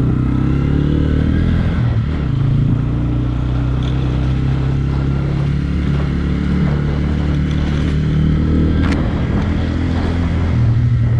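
Honda CBF125's single-cylinder engine running through a Blackwidow 300mm full-system aftermarket exhaust. It holds a steady low-revving note, with small changes in engine speed about two seconds in and near the end.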